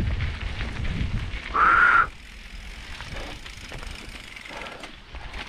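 Mountain bike rolling down a gravel trail with wind and tyre rumble on the helmet camera. About one and a half seconds in there is a short high squeal of the disc brakes as the bike slows, then quieter slow rolling with light clicks.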